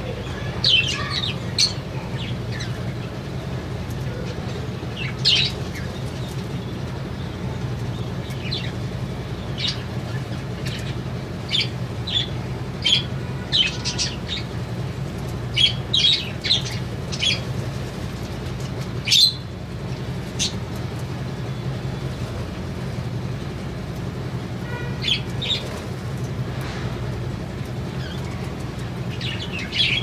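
Budgerigars chirping, with short high calls scattered irregularly, busiest in the middle and again near the end, over a steady low hum.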